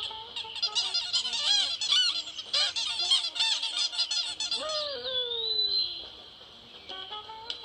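A group of birds chattering and squawking in quick, overlapping calls; about five seconds in a call slides down in pitch, and then the calling thins out.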